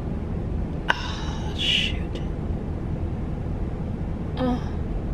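A woman straining as she works a nose ring into her nostril piercing: a small click about a second in, a short hissing breath just before two seconds, and a brief pained vocal sound near the end, over a steady low hum inside the car.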